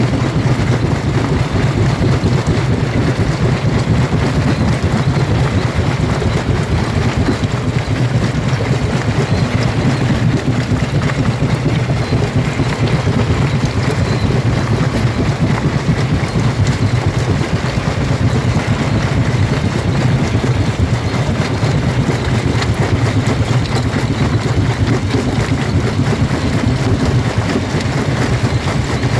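Jaw rock crusher running and crushing stone: a steady heavy mechanical rumble with dense, continuous crunching and knocking and no pauses.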